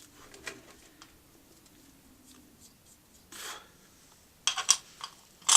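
Workshop handling sounds: a short rub or scrape about three seconds in, then a few sharp clicks and clatters near the end, like tools or engine parts being handled.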